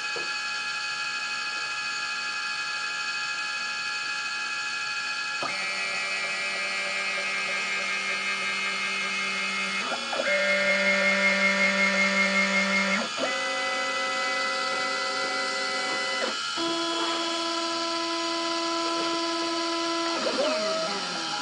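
4-axis CNC router carving wax, its motors whining in steady tones that jump to a new pitch every few seconds as the machine's moves change. It runs somewhat louder for a few seconds in the middle, and brief gliding whines come near the end.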